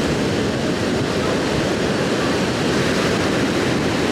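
Ocean surf washing onto the beach: a steady, loud rushing noise.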